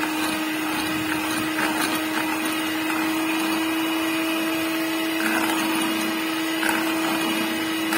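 Electric hand mixer running at a steady speed, its beaters whisking a runny batter of eggs, sugar and oil in a glass bowl: a constant motor whine with a steady hum underneath.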